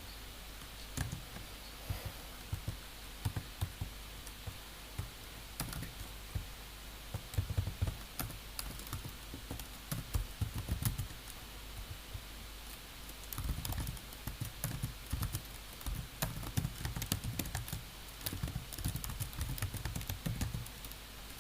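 Typing on a computer keyboard: irregular bursts of key clicks with short pauses between them, over a steady low hum.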